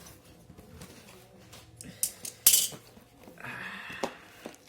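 Small plastic humidifier and its packaging handled during unboxing: light clicks and clinks, two sharp clattering rustles about two seconds in, then about a second of scraping plastic rubbing.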